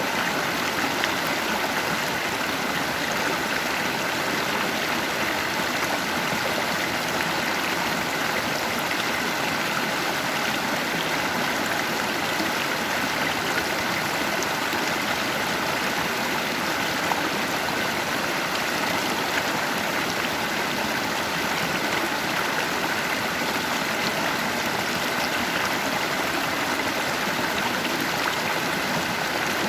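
Stream water running over rocks in a steady, unbroken rush.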